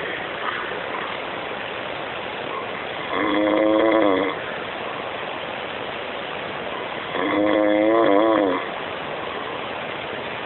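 Loud snoring: two snores about four seconds apart, each a pitched, wavering sound lasting a second or so, over a steady hiss.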